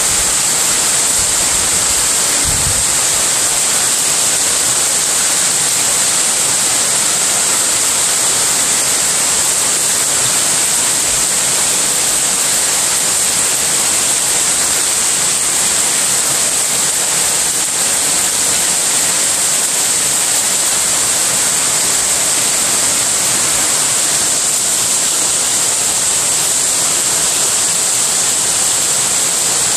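Heavy rain pouring down onto a tiled courtyard and plants: a loud, steady hiss that never lets up.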